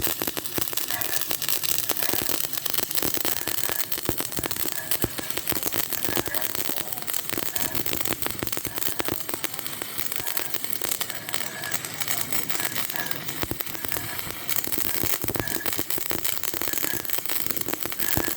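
Electric arc welding: a steady, dense crackling and spattering of the arc that runs without a break.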